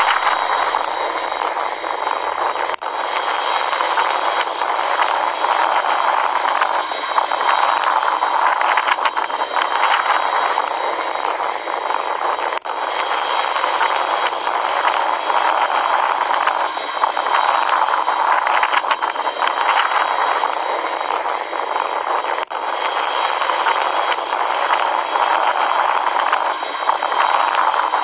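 Jet airliner engine noise: a steady, loud roar heard as through a small speaker, with thin lows and highs, broken by brief dropouts about every ten seconds.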